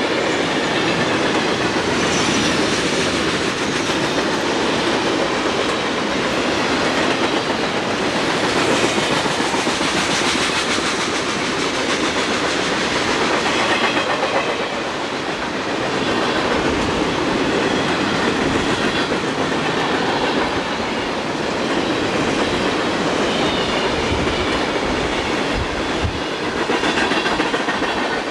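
Freight train cars rolling past: a steady rumble of steel wheels on the rails with clickety-clack over rail joints and a faint high wheel squeal now and then.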